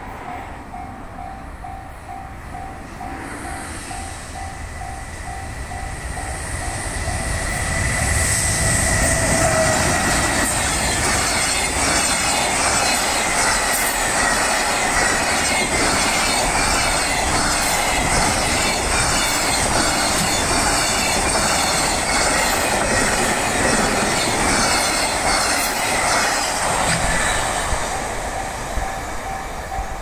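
Japanese level-crossing alarm dinging about twice a second while an EH500 electric locomotive and its freight train come up at speed. The rumble grows loud about eight seconds in and carries a long run of rhythmic wheel clatter over rail joints, which fades near the end. Once the train is loud, the alarm is lost under it.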